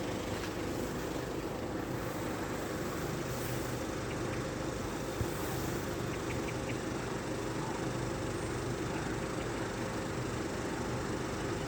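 Steady engine drone with a constant low hum, unchanging throughout, and a single faint tick about five seconds in.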